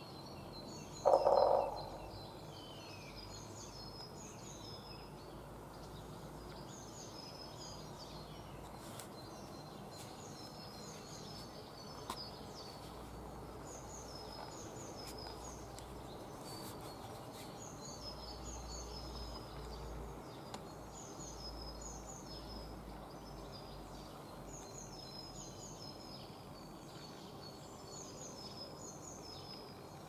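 A woodpecker drumming on a pole: one short, loud, rapid roll about a second in. Underneath, a steady chorus of small songbirds' high chirping songs.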